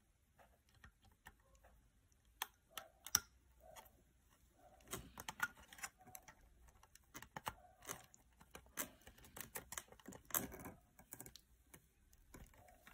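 Light, irregular clicks and rattles of a plastic PCIe power-cable plug and its wires being handled against a bare graphics card's circuit board, busier around the middle and again near the end.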